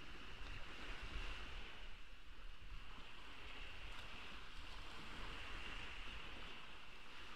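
Ocean surf washing onto a beach, a steady wash of wave noise.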